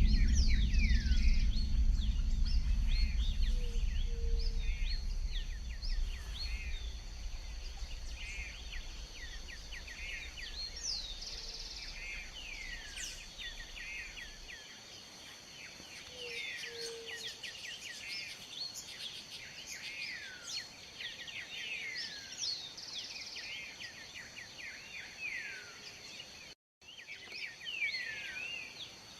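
Many birds chirping and calling, with quick falling whistles and short repeated trills, over a low rumble that fades out about halfway through. The sound drops out completely for a moment near the end.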